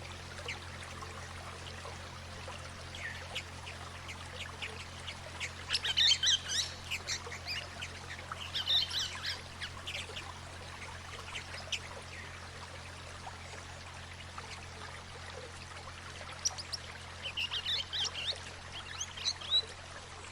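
Swift parrots calling in quick clusters of short, high chirps, about six and nine seconds in and again near the end, over the steady sound of running water and a low, steady hum.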